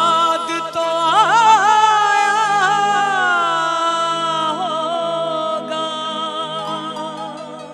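A young man's voice singing a long held note with ornamented, wavering runs, over steady instrumental accompaniment. The note slowly falls and fades near the end.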